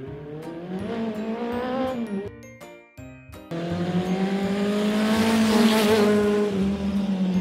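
Race-car engine revving sound, two long revs that swell and bend in pitch, the second one louder and longer. A few short musical notes come in the break between them.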